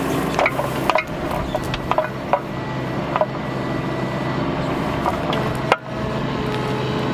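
Bobcat mini excavator's diesel engine running steadily, with scattered sharp knocks and clanks as the bucket digs into wet, dense clay.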